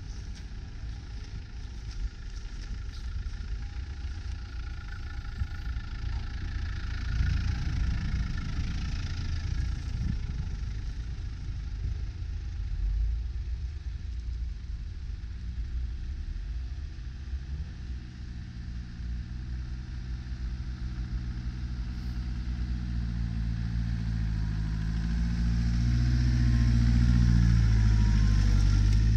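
Land Rover Defender engines running as the 4x4s crawl through deep snow. In the second half one engine comes close and grows louder, its pitch stepping up and down with the throttle, loudest near the end.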